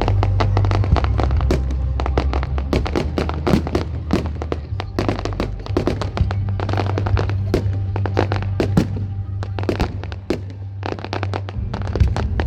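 Fireworks going off in a dense, rapid string of sharp bangs and crackles, several a second, over music with a heavy, steady bass.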